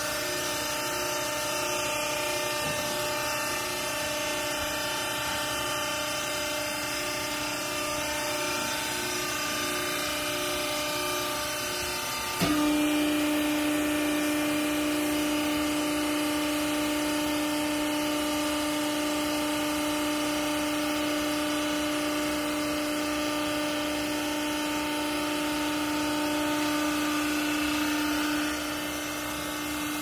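Hydraulic power unit of a vertical clothes baler running with a steady motor hum. About twelve seconds in there is a click and it jumps louder with a strong, even drone as the ram is driven down to compress the clothes, then it drops back near the end.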